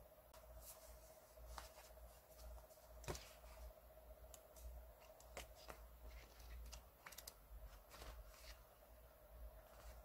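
Paper pages of a traveler's notebook being handled and turned: soft rustles and light taps, with one sharper tap about three seconds in, over a faint steady hum.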